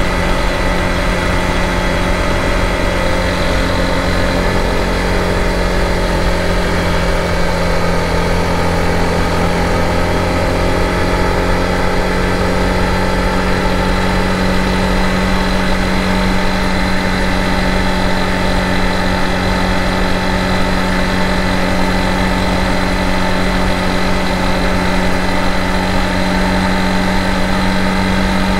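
Honda CRF250 Rally's single-cylinder four-stroke engine running at steady revs as the motorcycle rides along, its pitch holding constant.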